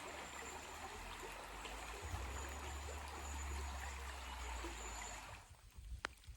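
Steady rushing noise with a low rumble beneath it, like running water or wind on the microphone. It cuts off abruptly about five seconds in, and a single click follows.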